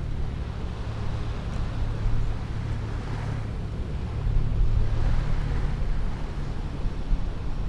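Seaside ambience: waves washing on the shore, swelling and easing every couple of seconds, over a steady low wind rumble on the microphone.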